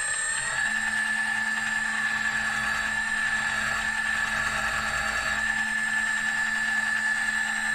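Mini lathe driven by a Turnigy Aerodrive SK3 6374 brushless outrunner motor, running steadily with a high whine. The pitch climbs and settles about half a second in.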